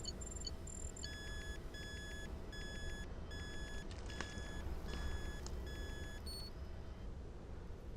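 Electronic beeping from designed sci-fi machinery: a run of short, evenly spaced beeps, about one and a half a second, starts about a second in and stops near the end, over a steady low rumbling drone. A faint click comes midway.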